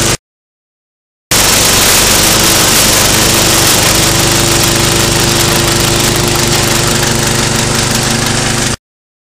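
Small engine-driven chopper-shredder running steadily under load, chopping green fodder, with a dense hiss of cut material over the engine tone. The sound cuts out just after the start, returns about a second later, and cuts off suddenly near the end.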